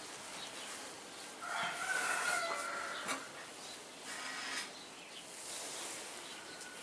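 An animal call, one pitched, drawn-out cry lasting about a second and a half, starting about a second and a half in. A sharp click follows just after it and another near the end of the call's echo.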